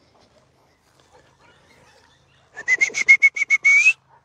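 A high-pitched animal call: a rapid run of about nine short notes lasting just over a second, its pitch rising at the end, coming about two and a half seconds in.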